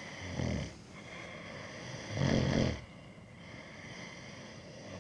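A person snoring: two loud snores about two seconds apart, the second one longer.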